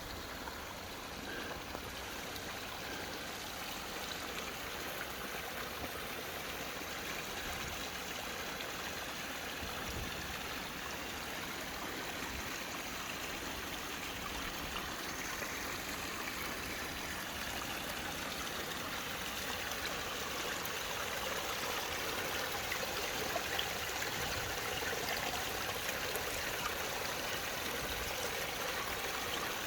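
A stream rushing steadily over rocks, slowly getting a little louder.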